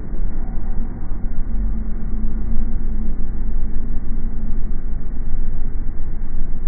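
Low, steady rumble of a car driving, picked up by a dashcam microphone inside the cabin. A faint steady hum joins in about a second and a half in and fades out about three seconds later.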